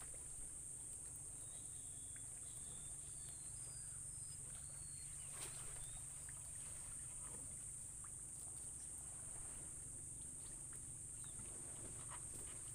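Outdoor ambience among mangroves: a steady high-pitched drone throughout, with a few faint short bird chirps in the first half and occasional light clicks as wire-mesh crab traps are handled.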